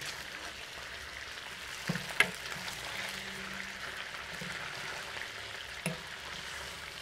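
Chicken pieces and sliced onion sizzling in oil in a glazed clay cazuela while being stirred with a silicone spatula. A few sharp clicks stand out, about two seconds in and again near the end.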